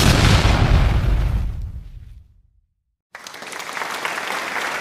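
Outro sound effects: a sudden loud hit that fades away over about two seconds, a second of silence, then applause starting about three seconds in and running on steadily.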